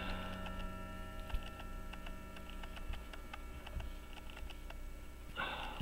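Faint small metallic clicks, a few a second and unevenly spaced, from an Illinois 18-size pocket watch movement as its mainspring is let down with a screwdriver, over a steady faint hum.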